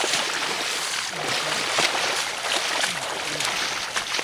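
Water rushing and splashing, steady and close, with faint voices underneath.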